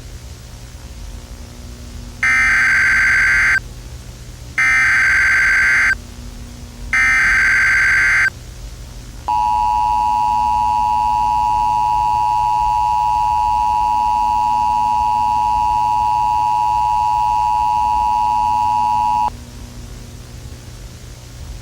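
Emergency Alert System alert tones over a low hum. First come three short shrill bursts of SAME header data, about a second and a half apart. About a second later the EAS two-tone attention signal starts and holds steady for about ten seconds before cutting off.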